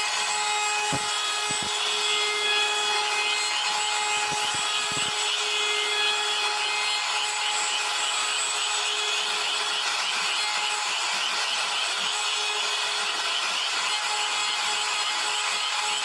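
CNC router spindle running with a steady whine while its bit cuts into wood, giving a continuous cutting hiss with a faint fast pulsing. A few short low knocks come in the first five seconds.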